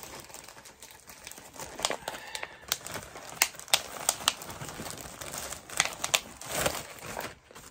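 Thin clear plastic bag crinkling and rustling as a baseball cap is handled in it, with irregular sharp crackles.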